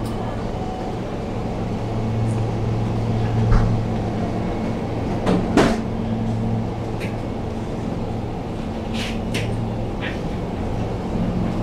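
Steady low electrical hum of a convenience store's open refrigerated display cases and cooling machinery, with a few scattered clicks and knocks, the loudest about three and a half and five and a half seconds in.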